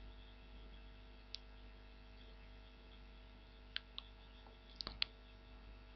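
A handful of faint computer mouse clicks, scattered and short, over a low steady hum.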